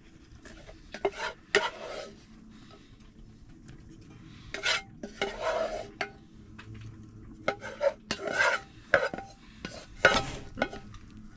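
Metal utensil stirring and scraping in a pan, with irregular scrapes and clinks.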